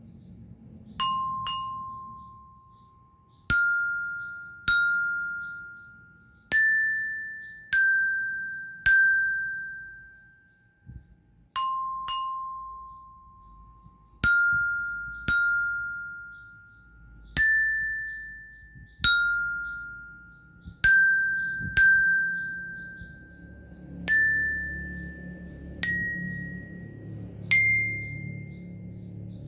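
Aluminium bell lyre (marching-band glockenspiel) struck with a single mallet, one bar at a time, in a slow melody. About eighteen single notes, spaced a second or two apart, each ringing out and fading away, with the last few notes stepping higher in pitch.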